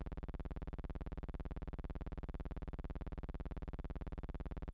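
A steady electrical buzz, pulsing rapidly and evenly, with no other sound. It is not tied to the picture and carries on unchanged through the cut.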